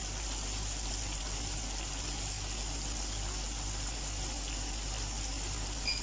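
Battered chicken pieces deep-frying in a pan of hot oil: a steady sizzle, with a short click at the very end.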